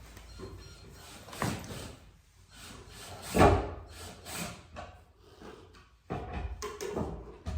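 Wooden parts of a flat-pack bathroom vanity knocking and scraping as they are handled and fitted together during assembly, with irregular thuds, the loudest about three and a half seconds in and a quick cluster near the end.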